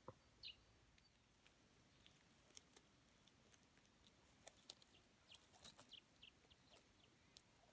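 Faint, irregular crisp clicks and snaps of a leopard tortoise biting and tearing leaves off a shrub with its beak while feeding.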